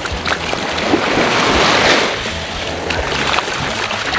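Sea surf washing onto a beach, swelling about two seconds in, with background music underneath.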